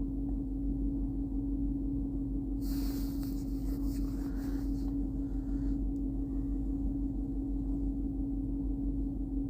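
A steady low hum throughout, with a scraping rustle from about three to five seconds in as the radio's metal screen housing is worked off by hand.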